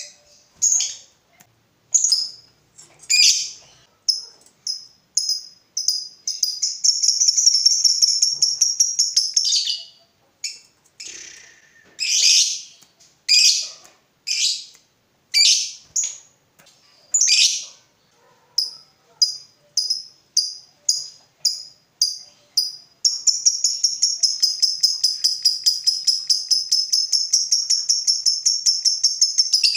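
A Fischer's lovebird calling: short sharp high chirps, broken by long, rapid, chattering trills (the 'ngekek'). One trill comes about a third of the way in, and another begins about three quarters of the way through and runs on.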